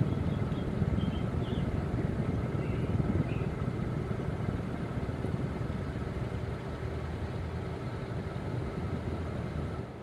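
S.M.C. Laguna KB36 ceiling fan running at speed: a steady motor hum with a faint whine over the whoosh of the spinning blades.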